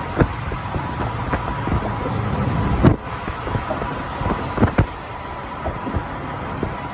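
Truck on the highway: steady road and engine rumble with frequent sharp knocks and rattles, and a faint steady high whine. A louder knock comes about three seconds in, after which the rumble drops a little quieter.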